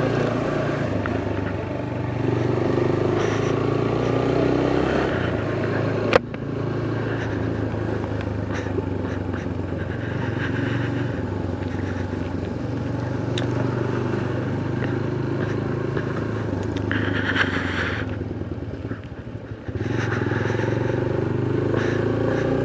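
Motorcycle engine running steadily while riding, with road and wind noise. A sharp click about six seconds in, and the sound drops briefly near the end before picking up again.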